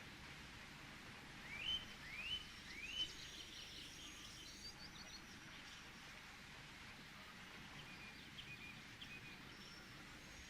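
Birds chirping over a faint steady outdoor hiss: three quick rising calls about a second and a half in, then scattered high twittering, with a few more chirps near the end.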